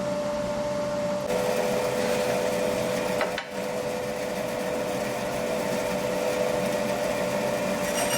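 Charnwood W715 10-inch bandsaw running with a steady mechanical hum and a constant tone. The sound shifts abruptly about a second in and dips briefly around three and a half seconds in.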